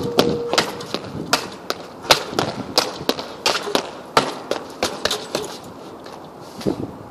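Heavy punching bag being hit by a fast, irregular run of punches and kicks, sharp slaps about two to three a second, thinning out near the end.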